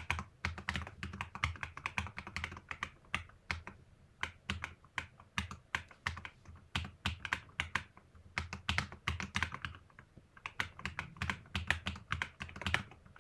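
Typing on a CIY TESTER84 mechanical keyboard with lubed Akko V3 Cream Yellow Pro linear switches and PBT XDA keycaps: a quick, uneven run of soft, muted keystrokes, damped by silent rings, foam, tape and an O-ring gasket mount.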